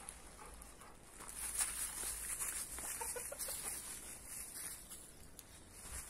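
Domestic chickens clucking in their run, with a short run of clucks about halfway through.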